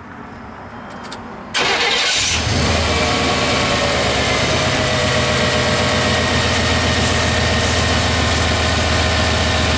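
1993 Chevrolet Silverado pickup's engine cranked by the starter about a second and a half in, catching within a second and settling into a steady idle, run to warm up and push air out of a freshly refilled cooling system.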